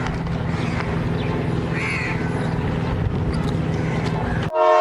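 Steady hum of traffic and engines in the background, with a brief high call about two seconds in. Near the end a loud blast of several steady tones starts abruptly, like an air horn.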